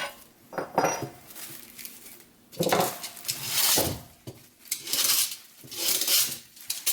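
Steel parts of an old machine gun parts kit being handled and set down, clinking and clanking against each other at irregular intervals.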